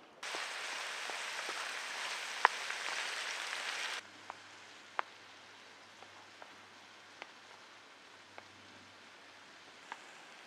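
Steady hiss of heavy rain falling, with a sharp drop-like click about halfway through. At about four seconds the hiss cuts off suddenly, leaving a quiet background with a few scattered sharp ticks.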